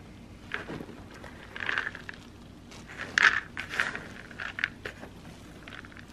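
A hand rummaging through goat manure pellets in a plastic bucket: irregular rustling and crunching as the pellets shift and scrape, loudest a little past three seconds in.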